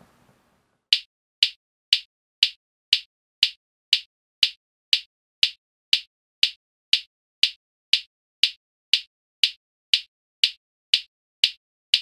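Sharp, identical ticks repeating evenly about twice a second over dead silence: a ticking sound effect added in editing.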